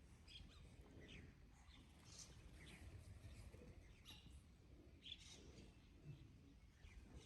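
Faint, scattered bird chirps, short and high, over a low rumble.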